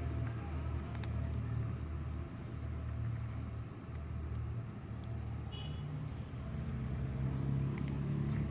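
Low, steady rumble of a motor vehicle engine running close by; its pitch steps up a little past the middle. A brief high squeak sounds about five and a half seconds in.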